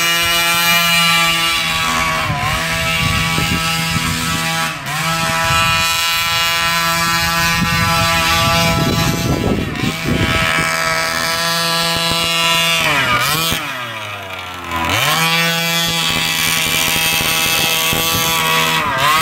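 Small combustion engine of a large radio-controlled truck running hard with a loud, buzzing note, far too loud for the truck. The pitch dips briefly a couple of times, then falls sharply about thirteen seconds in and climbs back about two seconds later.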